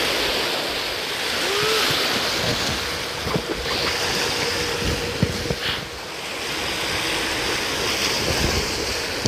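Sea waves washing and splashing against shore rocks, with wind buffeting the microphone. A few light knocks come between about three and six seconds in.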